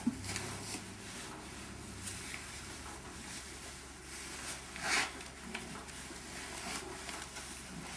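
Faint rustling and scuffing as a nylon cargo strap is worked around a horse standing in straw, with one brief louder rustle about five seconds in.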